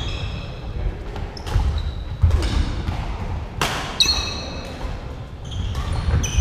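Badminton doubles rally: several sharp racket strikes on the shuttlecock, with short high-pitched squeaks of court shoes on the wooden floor between them, echoing in a large hall.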